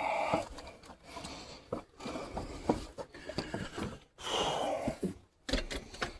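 Handling noise from manual work: a run of light knocks, clicks and scrapes, with a longer rub about four seconds in.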